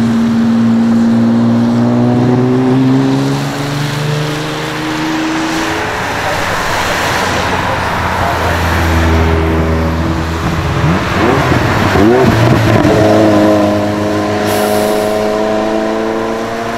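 High-performance supercar engines accelerating hard, their pitch climbing and dropping back in steps through gear changes, with a stretch of hiss midway as a car passes. Tyres swish on a wet road.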